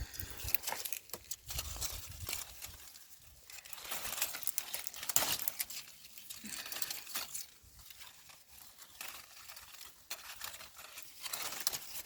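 Leaves and plant stems rustling and crackling as crops are plucked by hand from among dense foliage, an irregular run of small crinkles and snaps.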